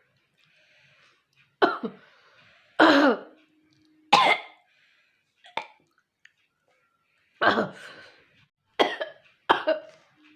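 A woman coughing and hawking hard to clear her throat in about seven harsh, separate bursts, the longest and loudest about three and four seconds in, forcing up phlegm to spit.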